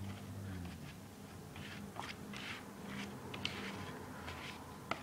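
Soft, uneven swishing strokes and a few light clicks from hands handling the shoe-care materials.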